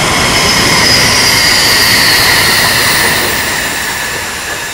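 Steam locomotive No. 90 rolling slowly past on a curve, tender first, its wheels giving a high flange squeal over the rumble of the running gear. The squeal sinks slightly in pitch and is loudest in the middle as the locomotive passes, then fades.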